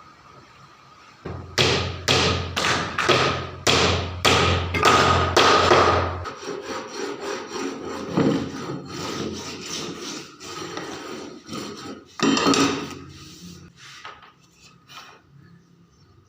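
Wood being worked by hand with a tool rubbing on it, at first in a quick, even run of about two strokes a second. Slower, quieter scraping follows, with one more strong stroke near the end.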